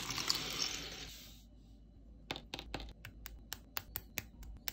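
Plastic model-kit parts handled on a table: a short rustle, then a run of small sharp plastic clicks, about four a second, as snap-fit pieces are pressed and clicked together.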